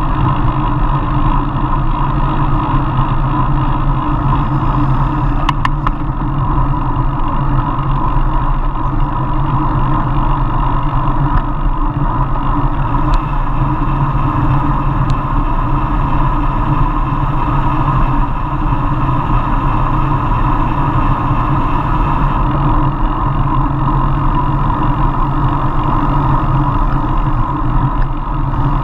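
Steady wind and road rumble picked up by a bicycle-mounted action camera while riding in a group.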